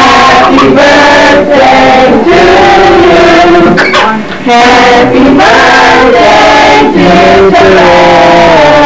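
A group of voices singing together, loud, with held notes and a short break about four seconds in.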